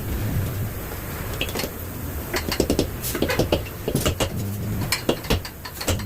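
Irregular sharp clicks and knocks, like work noises, with a low steady hum that comes in about four and a half seconds in.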